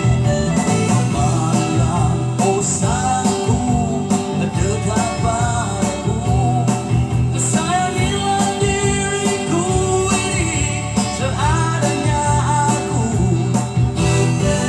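A song: a singer's voice with sliding, ornamented melody lines over guitar accompaniment.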